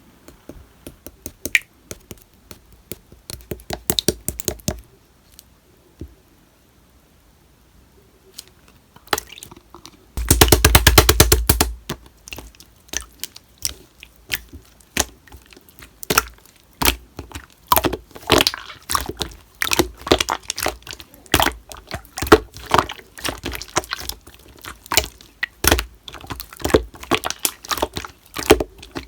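Slime being squished and pressed by hand, giving irregular sharp clicks and pops. There is a quiet pause from about five seconds in, then a dense, loud run of crackling at about ten seconds, followed by scattered clicks and pops.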